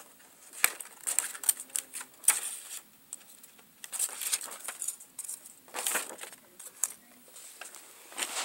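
Scissors snipping through paper: a run of irregular, sharp clicks and snips with short pauses between them.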